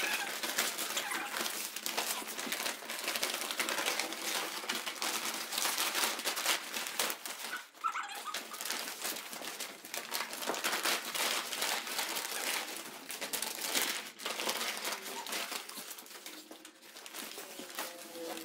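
A large sheet of paper being crumpled and crinkled by hand: a dense, continuous crackling rustle, with a brief pause about eight seconds in.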